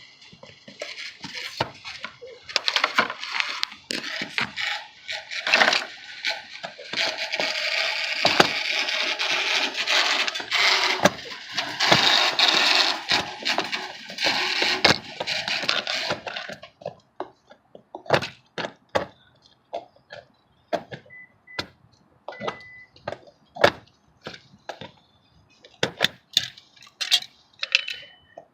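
Sharp metallic clicks and knocks of channel-lock pliers and side cutters gripping and slipping on a steel screw lodged in a car tire. For about the first sixteen seconds a loud rushing noise runs under the clicks, then stops, leaving only scattered single clicks.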